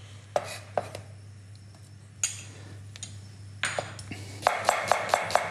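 A few separate clinks and knocks of a stainless steel pan and utensils as butter goes into the pan. From about four and a half seconds in, a chef's knife starts chopping onions on a wooden board in a fast, even rhythm of about four strokes a second.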